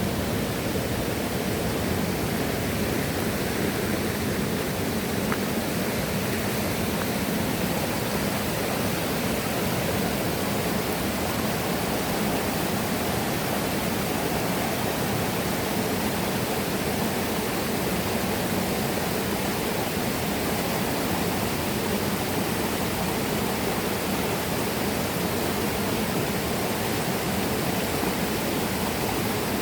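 River water rushing, a steady, unbroken wash of flowing-water noise.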